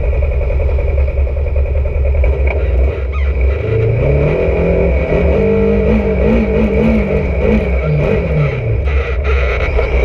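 Polaris RZR side-by-side engine revving as it pulls away from a stop. The revs climb about three and a half seconds in, hold high with a wavering pitch, and drop back a little after eight seconds, over a steady low rumble.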